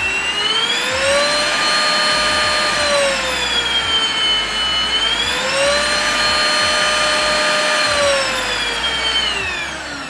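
Prettycare W200 cordless stick vacuum's motor running, a high whine over rushing air. It holds at the high speed, drops to the low setting around the middle, climbs back to high, and winds down near the end.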